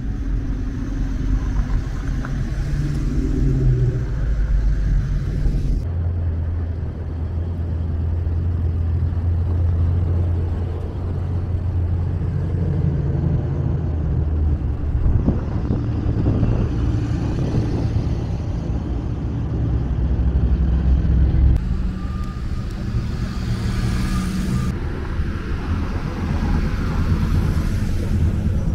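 Car engines running at low speed, a steady low rumble from slow-moving traffic, with the sound changing abruptly a few times.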